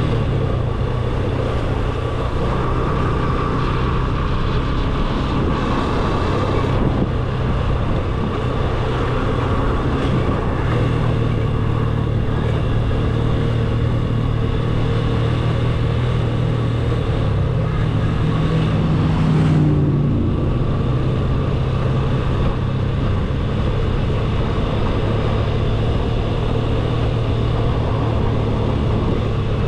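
Motorcycle engine running steadily at road speed, with wind and road noise. Its revs climb about two-thirds of the way through and drop sharply just before twenty seconds, like a gear change.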